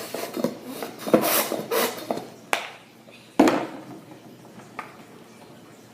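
Utensil clinking and scraping against a plate while slime is worked, with sharp knocks about one, two and a half and three and a half seconds in, then quieter.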